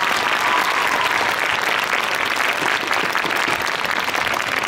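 Arena audience applauding steadily as a skater is introduced onto the ice.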